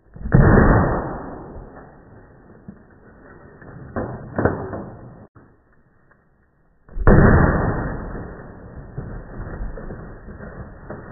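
A refrigerator being smashed: two heavy crashing impacts, one near the start and one about seven seconds in, each trailing off into a couple of seconds of rattling, breaking plastic and glass, with two sharper knocks in between about four seconds in.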